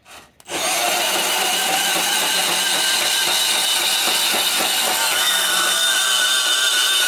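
Milwaukee M12 Fuel compact band saw starting up about half a second in and cutting steadily through rusty rectangular steel tubing, a loud, even sawing noise with a faint high whine.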